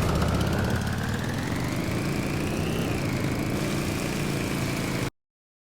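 A low mechanical drone with a whine that rises in pitch for about three seconds, dips slightly and holds, then cuts off abruptly.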